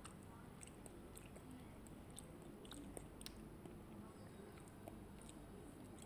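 Near silence with faint chewing and scattered small mouth clicks: a person eating kulfi.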